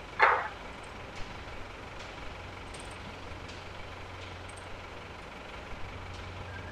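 Caterpillar IT28 wheel loader's diesel engine idling steadily, with a short loud sound just after the start and faint clicks scattered through.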